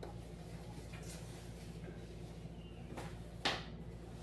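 Rustling and swishing of a neoprene wetsuit and its packaging being handled, a few short rustles with the loudest one about three and a half seconds in.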